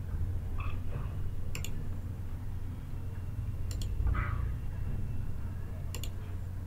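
Three sharp computer mouse clicks, a couple of seconds apart, over a steady low hum.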